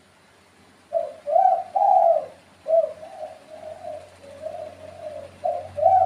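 Spotted dove cooing. After about a second of quiet comes a phrase of three or four loud low coos, then a run of softer drawn-out notes, and a new phrase begins near the end.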